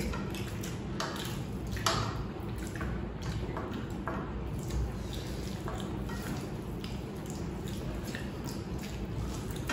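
Eating by hand: fingers squishing rice and egg curry on plates and mouths chewing, a scatter of short soft wet clicks and smacks over a low steady hum.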